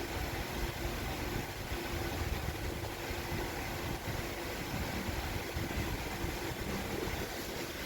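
Steady low background rumble and hiss, with a faint hum that fades out about halfway through.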